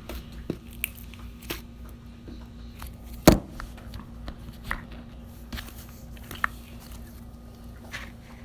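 Slime being squished and stretched by hand, with scattered small clicks and pops and one louder sharp knock about three seconds in.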